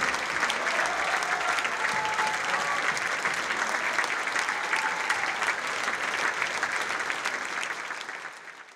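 Opera house audience applauding a curtain call, dense steady clapping that fades out near the end.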